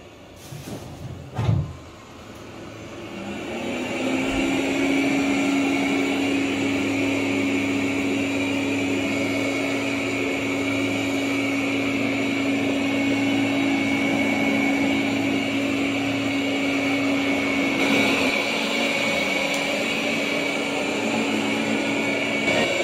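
Roborock S8 robot vacuum's suction motor spinning up after a knock, rising over about two seconds to a steady hum with a high whine.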